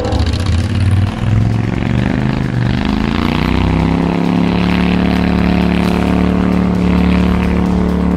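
Outboard motor on a small fishing boat revving up over the first few seconds, then running steadily at a constant speed as the boat pulls away.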